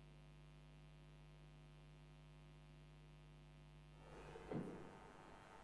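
Near silence with a steady low electrical hum. About four and a half seconds in, a short soft knock as a pipe-organ stop knob is drawn.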